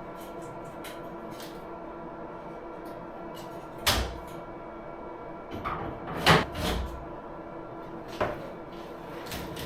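A few sharp knocks and clatters, the loudest about four and six seconds in, over a steady hum.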